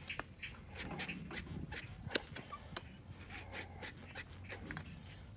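A hoof-trimming blade pares a donkey's hoof, cutting through horn in short strokes with sharp cracks and scrapes. The horn is dry and rotten, hollowed by dry rot toward the heel.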